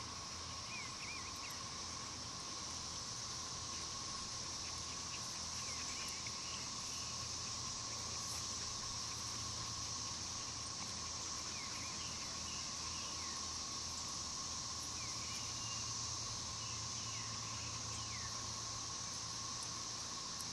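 Steady high insect drone with a fainter, lower steady whine beneath it, and scattered short bird chirps throughout.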